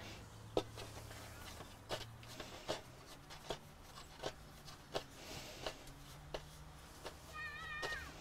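Faint soft taps of hands shaping bread-roll dough on a kitchen worktop, about one tap a second, over a low steady hum. A brief high warbling chirp sounds near the end.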